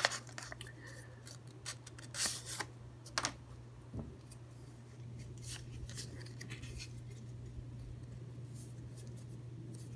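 Paper wrapper crinkling and rustling as it is unfolded and pulled off a stack of trading cards, in short bursts during the first four seconds and fainter handling after that. A steady low hum runs underneath.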